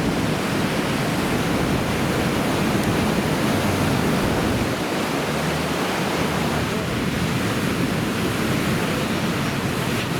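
Steady rushing noise of heavy ocean surf from typhoon swell, even and unbroken, with most of its weight low down.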